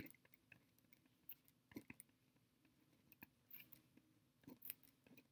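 Near silence with faint scratching and ticking of a pen writing on paper, a few short strokes scattered through it.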